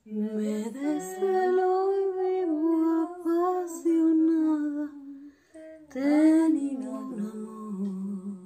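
A woman singing a slow melody alone, in long held notes that glide gently up and down, breaking off briefly about five seconds in and starting again on a rising note.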